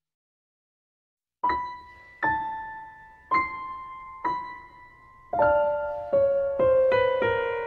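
Piano music. After about a second and a half of silence, slow single notes come about a second apart, each ringing and fading, then quicken into a run of notes near the end.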